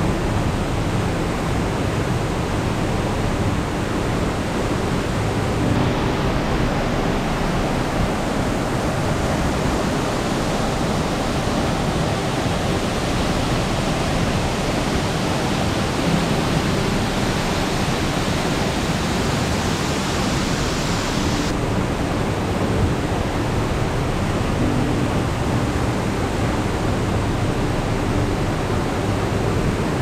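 Steady rush of a large waterfall pouring into its plunge pool, the river running high after rain. The character of the rush changes abruptly twice, about a fifth of the way in and again about two-thirds through.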